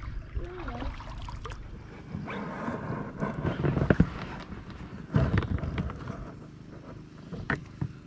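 Wind buffeting the microphone, with small clicks and knocks as a spinning rod is cast and its reel handled in an inflatable boat.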